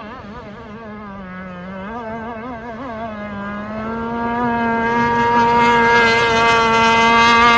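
RC hydroplane engine running at speed. Its pitch wavers through the turn, where the test propeller loads the engine, then settles into a steady high note on the straightaway, getting louder.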